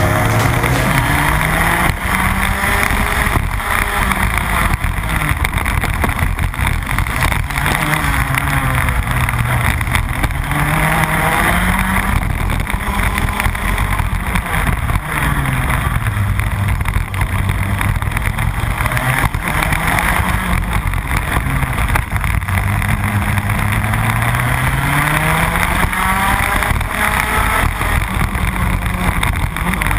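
Rotax Max 125cc two-stroke kart engine heard from on board the kart, its revs climbing and dropping again and again as it accelerates out of corners and backs off into the next.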